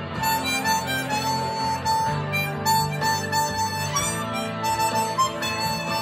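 Hohner 280-C Chromonica chromatic harmonica playing a melody of short, mostly repeated notes, with a few higher notes, over a steady low accompaniment.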